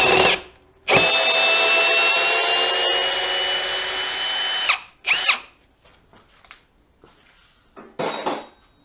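Ridgid cordless drill in low gear (speed one) driving a long timber-lock screw into a wooden beam. A steady motor whine stops just after the start, then runs steadily for about four seconds with a short trigger blip after it and another near the end.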